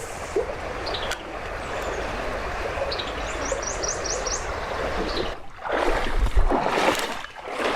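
Creek water running steadily over rocks. A little over three seconds in, a bird gives a quick run of about six short, high, falling chirps. Near the end come louder bursts of splashing water.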